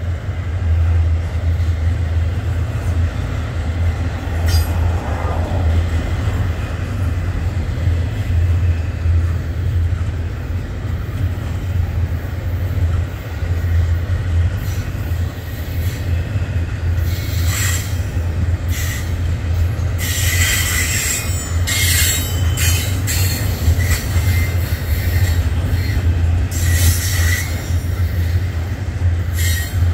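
Double-stack freight cars rolling past with a steady low rumble and wheel noise. In the second half, high wheel squeals come and go.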